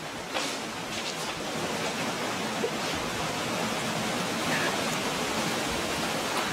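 Steady rushing hiss of sea water washing over the shingle floor of a narrow rocky cove, swelling slightly in the second half, with a few faint ticks near the start.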